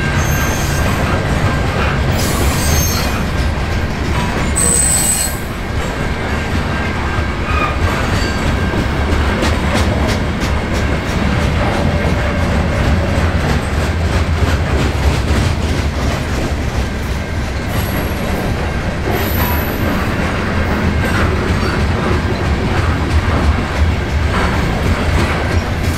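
Freight train of covered hopper cars rolling steadily past: a continuous loud rumble of steel wheels on rail with clacking over the rail joints, and a few short high-pitched wheel squeals now and then.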